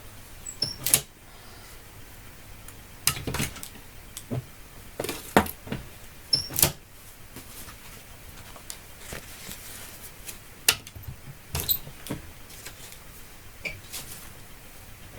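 Handling noise: scattered light knocks and clicks with a few short rustles, about a dozen in all at irregular intervals, from small items such as envelopes and stickers being handled.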